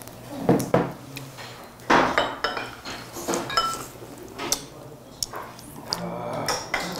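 Eating utensils clinking and tapping against dishes and bowls during a meal, as a string of irregular clicks and knocks, a few with a short ringing tone.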